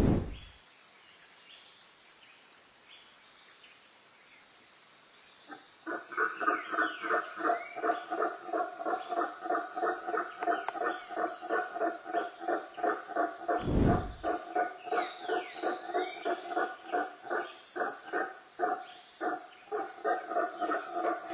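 Frog calling in a fast, even run of croaks, about four a second, starting about six seconds in, over high, repeated insect or bird chirps. A deep thud sounds at the very start and another about two-thirds of the way through.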